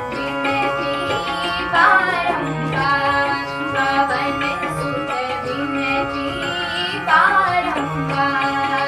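Instrumental passage of a Hindi devotional bhajan to Hanuman: a melody line with percussion accompaniment. There are sweeping flourishes about two seconds in and again near the end.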